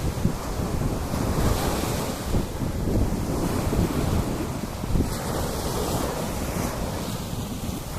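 Sea waves washing onto a sandy beach, with wind buffeting the microphone and a low rumble.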